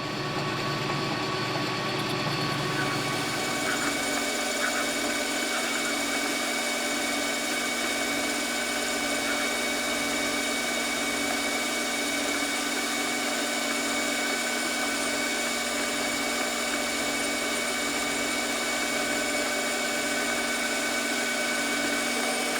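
Metal lathe running steadily, its motor and drive giving a constant whine of several fixed pitches, with a lower hum dying away over the first few seconds, while it takes a light clean-up cut on the stock.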